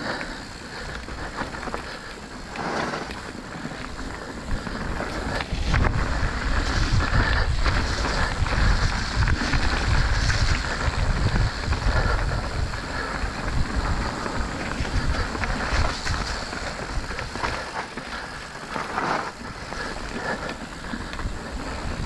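Mountain bike ridden fast down a wet dirt singletrack: tyre noise and knocks and rattles of the bike over bumps, with wind buffeting the microphone, heaviest from about six to twelve seconds in.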